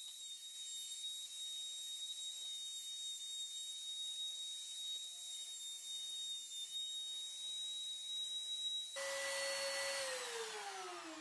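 Aldi Ferrex palm router running as it cuts letters into wood along a template, a steady high whine. Near the end it is switched off and its whine falls steadily in pitch as the motor spins down.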